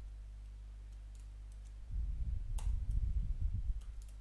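Typing on a computer keyboard while editing code: a few scattered keystrokes, then from about two seconds in a denser run of keystrokes with dull low thuds and one sharper click. A steady low electrical hum runs underneath.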